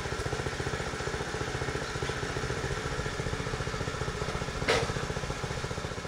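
Frontier OS23 portable bandsaw mill running steadily, its engine pulsing evenly under a hiss of the band blade cutting through a log. A single sharp knock sounds near the end.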